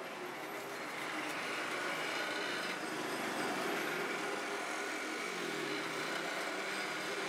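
Steady street traffic noise, with a motor vehicle's engine passing and changing pitch about five seconds in.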